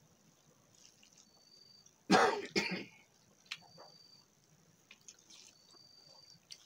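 A woman coughs twice in quick succession, a short, loud throat-clearing cough about two seconds in. Faint clicks around it.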